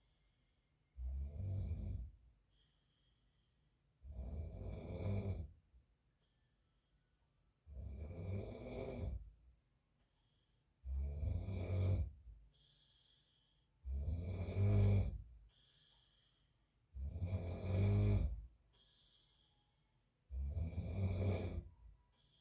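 A man snoring in a slow, regular rhythm: seven snores, about one every three seconds, each lasting a little over a second, with quiet breathing between.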